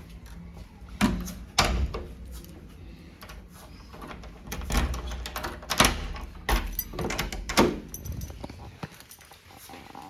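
A series of sharp knocks and thumps, about six spread over several seconds, with quieter handling noise between them.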